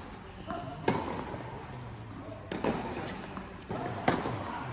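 Tennis rally on an indoor hard court: three sharp racket strikes on the ball, about a second and a half apart, with softer knocks between them.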